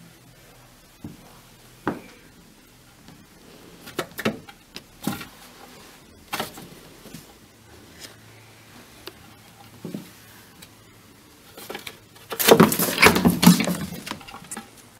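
A cat lunging at a rat by an open cupboard: scattered light knocks and taps, then a loud burst of scuffling and clattering about twelve seconds in, lasting a second and a half.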